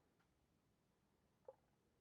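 Near silence: room tone, with one short faint click about one and a half seconds in.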